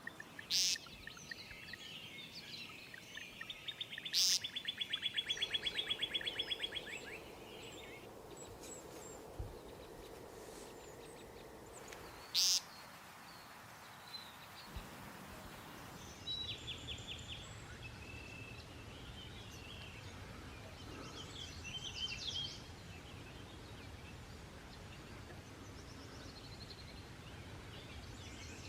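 Birds chirping and calling over a steady outdoor background, with a fast, even trill a few seconds in. Three short, sharp, loud clicks stand out, and about halfway through the background changes abruptly to a lower hum.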